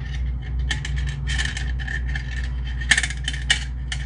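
Coiled steel recoil spring of a Polaris Express 300 pull starter scraping and clinking against its metal housing as it is wound in by hand, in short irregular strokes, with two sharp metallic clicks about three seconds in. A steady low hum runs underneath.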